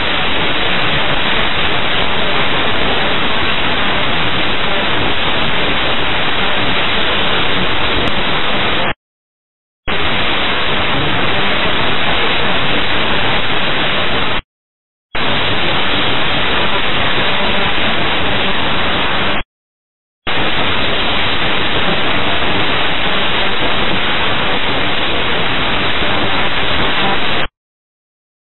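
Loud, steady radio static hiss on an air traffic control frequency between transmissions, cutting to dead silence four times for half a second to two seconds.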